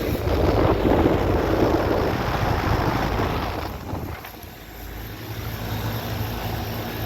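Several Heil/Tempstar air conditioner condensing units running together: a steady low compressor hum under the rush of the condenser fans. The air rush is louder in the first four seconds, dips briefly, then returns more weakly.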